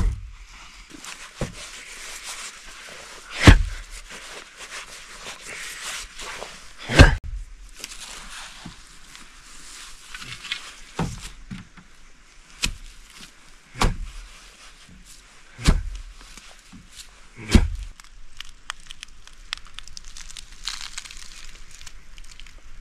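Irregular heavy knocks and thuds, a few seconds apart, over a faint steady hiss.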